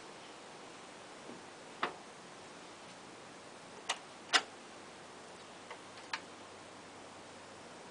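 Clicks from the front-panel buttons of a Pioneer PL-400 turntable being pressed: five sharp clicks, the loudest about four and a half seconds in, over a faint steady hiss.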